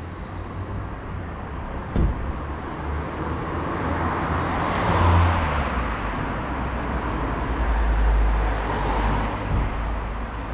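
Road traffic passing on a city street: vehicles swell up and fade away twice, about halfway through and again near the end, over a low rumble, with a single thump about two seconds in.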